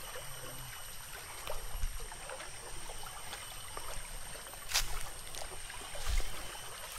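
A stream trickling, with a few scattered clicks and knocks.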